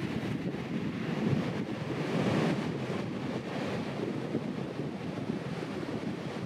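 Ocean surf breaking and washing, with wind buffeting the microphone; it swells a little about two seconds in.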